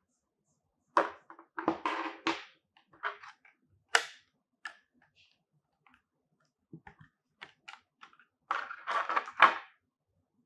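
Clear plastic blister tray crackling and clicking as the ADATA SD600Q external SSD and its cable are handled over it and lifted out. Bursts of crackle come about a second in and again near the end, with scattered single clicks between.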